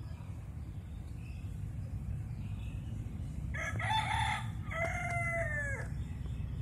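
A rooster crowing once, about three and a half seconds in: a two-part call lasting about two seconds, the second part falling in pitch.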